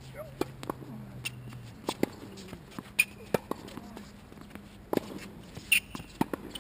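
Tennis point on a hard court: a serve and rally, with sharp knocks of racket strikes and ball bounces about every half second to second, mixed with footsteps and brief sneaker squeaks.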